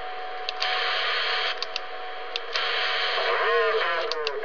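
CB radio receiver hiss from a President McKinley transceiver's speaker. The upper hiss drops and comes back a few times, each change marked by a short click pair, as the hi-cut noise filter is switched in and out. A faint voice comes up under the static near the end.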